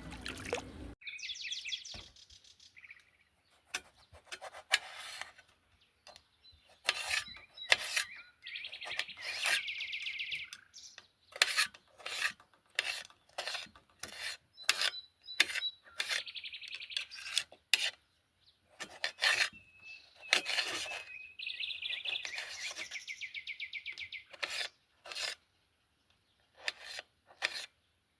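Short rubbing or scraping strokes at an uneven pace, typical of food being worked by hand, with birds singing quick trills several times in between.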